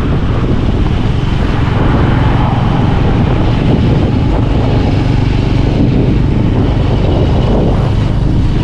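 Motorcycle tricycle (motorcycle with sidecar) on the move: the engine runs steadily under a constant wash of road and wind noise.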